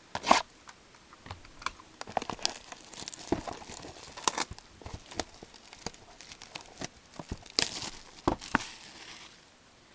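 Plastic wrapping crinkling and tearing as a sealed box and packs of trading cards are opened, with scattered light clicks and taps of cardboard and cards being handled.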